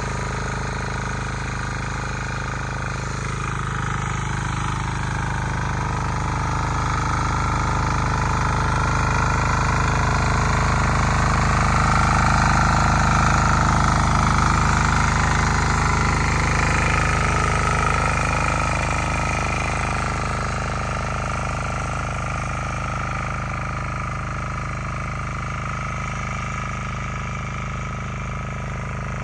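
Bolat Atom 7 HP single-cylinder diesel tiller running steadily under load as it cuts a furrow in the soil. It grows louder toward the middle, then fades a little.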